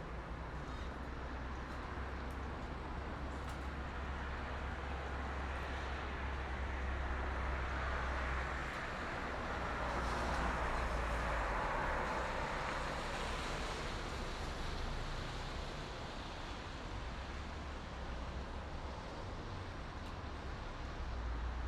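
Highway traffic: a steady wash of tyre and engine noise over a low rumble, swelling as a vehicle passes close about halfway through.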